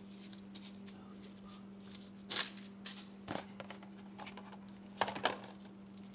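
A cardboard filter box being handled: rustling and scattered knocks, with two sharp knocks close together near the end, over a steady low hum.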